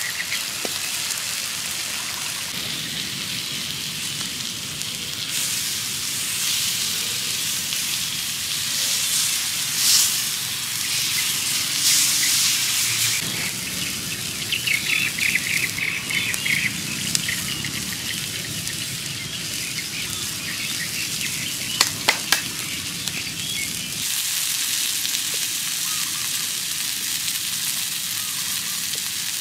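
Beef steaks sizzling on a stone slab heated over a wood fire, a steady frying hiss. Birds chirp briefly about halfway through, and a few sharp clicks come about three-quarters of the way in.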